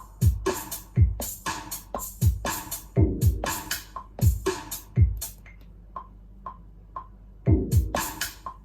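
Electro-house beat playing from a Maschine drum machine: deep kick drums that fall in pitch, with crisp hi-hat and snare hits on top. About five seconds in the kicks and hats drop out for a couple of seconds, leaving only light ticks, then the full beat comes back near the end.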